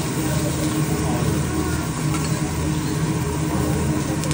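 Restaurant din: a steady low hum under a murmur of voices, with food sizzling faintly on a hot teppanyaki griddle and the light scrape and tick of a metal spatula working it.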